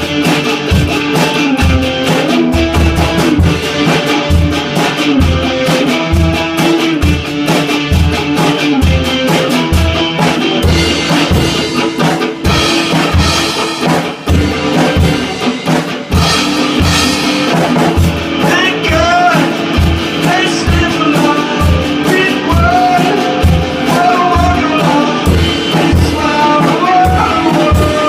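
Rock song with electric guitar, a steady drum-kit beat and a singing voice.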